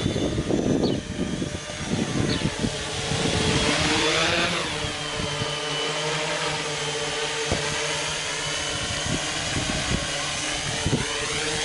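Homebrew H-frame quadcopter's electric motors and propellers whining in flight. The pitch swoops up and down around four seconds in and again near the end, and a few short knocks come in the second half.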